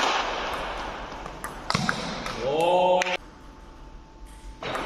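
Table tennis hall sounds: clapping dying away, a few sharp clicks of the ball, then a loud shout about two and a half seconds in. The sound then cuts off abruptly to a quiet spell with a faint steady tone, and the hall noise comes back near the end.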